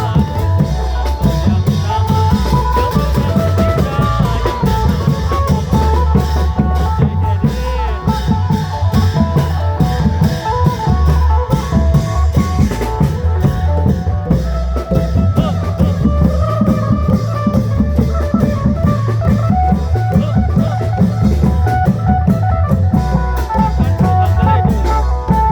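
Isan klong yao band music: a plucked phin melody over a steady, driving beat of long drums and drums.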